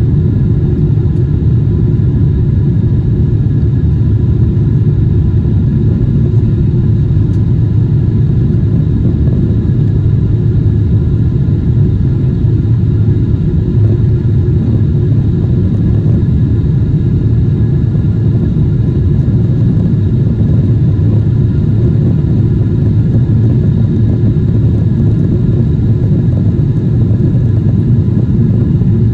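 Steady low rumble of a Boeing 777-200 jetliner heard from inside the passenger cabin: jet engine and airflow noise, with a faint steady whine above it.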